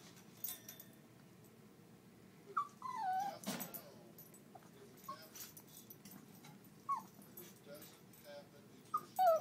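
Small dog whining: several short, high whimpers that fall in pitch, spaced a couple of seconds apart, with a brief knock or rattle about three and a half seconds in.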